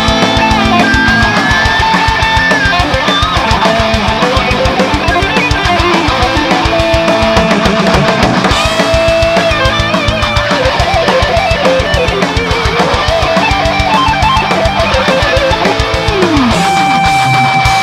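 Heavy metal song: distorted guitars over a busy drum kit, with a lead line of long held notes that bend and waver with vibrato.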